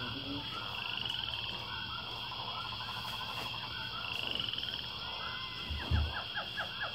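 Background chorus of animal calls: repeated short chirps and rapid trills over a steady high-pitched whine. A low knock comes about six seconds in.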